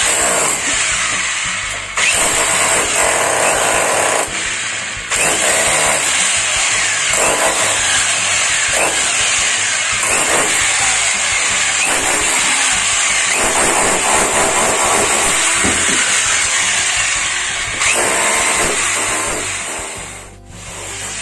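Electric chipping hammer chiselling into a masonry wall, running in long loud stretches. It pauses briefly about two seconds in and again around four to five seconds, and stops near the end.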